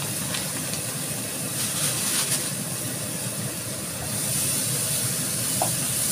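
Spice paste sizzling in a hot nonstick frying pan, a steady hiss that gets louder about four seconds in as it is stirred with a spatula. The paste is being sautéed until it is fully cooked.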